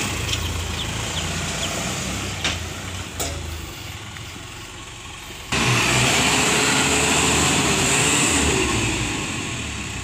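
Isuzu Elf NMR71 dump truck's diesel engine running as the truck works on loose dumped soil. There are two sharp knocks about two and a half and three seconds in, and the engine is louder from about halfway.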